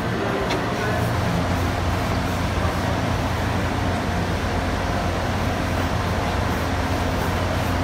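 Steady hum and rumble of a running escalator, with a foam riser pad rubbing against the grooved step risers.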